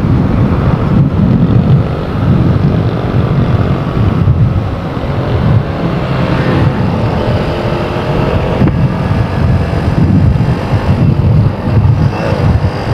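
Motorcycle ride at speed: heavy wind buffeting on the microphone, with the single-cylinder engine of a Honda TMX 125 Alpha running steadily underneath.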